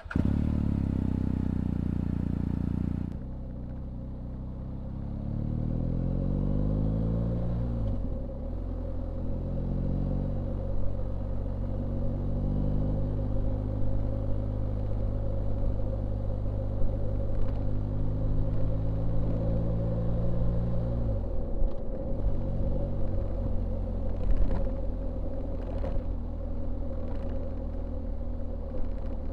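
BMW R1250GS Rallye's 1254 cc boxer-twin engine pulling away, its pitch rising through the gears with a break about 8 seconds in, then holding a steady speed with wind and road noise. About 21 seconds in the engine note drops sharply as the throttle closes and the bike slows.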